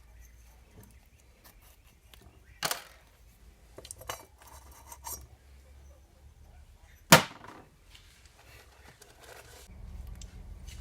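Metal tools and engine parts clinking and knocking on a workbench: two sharp metallic knocks, the louder about seven seconds in, with lighter clicks between them.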